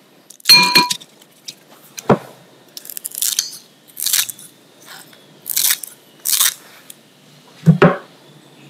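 A glass bowl clinks, ringing briefly, as fresh shredded coconut is tipped into a ceramic bowl. Kitchen scissors then snip a pandan leaf in a series of short, crisp cuts, and there is a low knock near the end.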